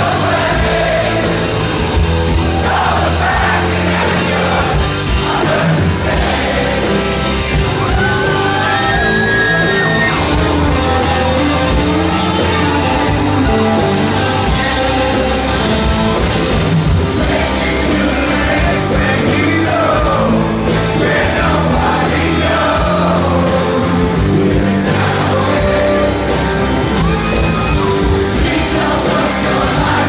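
Live rock band playing loud through the PA, with amplified electric guitars and a male lead vocal, heard from the audience in a large hall.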